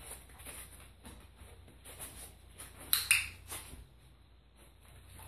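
Light taps and shuffles of a dog's paws on and around a small plastic step-stool perch, with a sharp double click about three seconds in.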